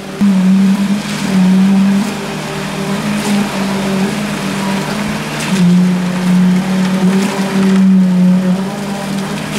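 Concrete poker vibrator humming steadily at a high pitch, its tone sagging slightly and recovering as the poker is worked through the wet concrete.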